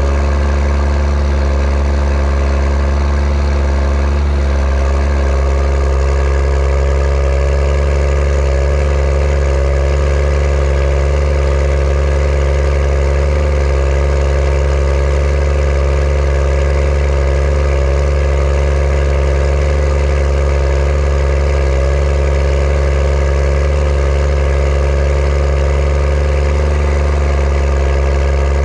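Case IH Puma 225 CVX tractor's six-cylinder diesel engine running steadily, heard close to the exhaust stack. Its note shifts slightly in the first few seconds, then holds even.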